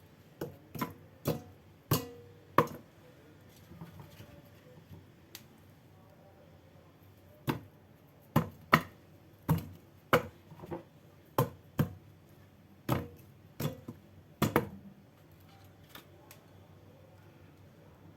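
Knife chopping food on a cutting board: about five sharp strokes at the start, a pause with only faint ticks, then a run of about a dozen strokes, roughly two a second, that stops a few seconds before the end.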